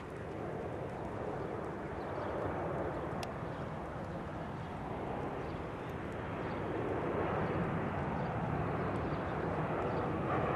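Steady rumble of an aircraft passing overhead, growing louder in the second half.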